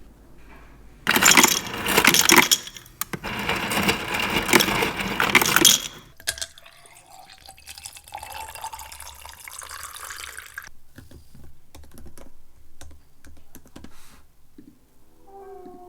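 Water gushing loudly for about five seconds, then running more quietly into a container, with a faint tone rising in pitch as the container fills; a few light clicks follow.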